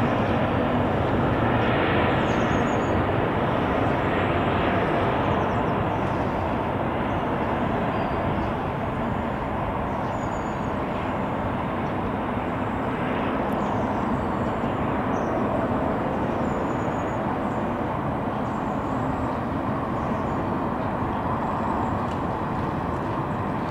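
Airbus A380-842 airliner passing overhead on approach with its landing gear down: steady jet engine and airframe noise that slowly fades as it moves away.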